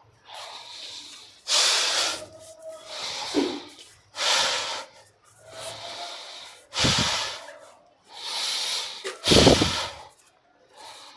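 A man breathing slowly and deeply in a pranayama exercise: about seven long, audible, breathy inhalations and exhalations with short pauses between them. Two exhalations, at about 7 and 9.5 seconds, blow onto the microphone with a low rumble.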